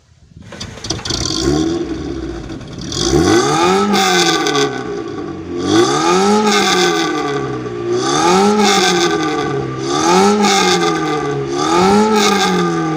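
VAZ (Lada) car engine revved repeatedly through an exhaust whose catalytic converter has been replaced by a straight spacer pipe, with a burnt-through muffler patched by arc welding. The revs climb and drop about five times, roughly every two seconds.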